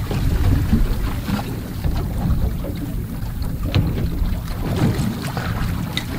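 Wind buffeting the microphone over choppy sea water slapping against a boat's hull: a steady low rumble with a few faint ticks.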